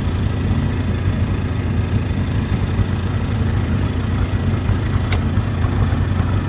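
A small engine running steadily, with a single sharp tap about five seconds in.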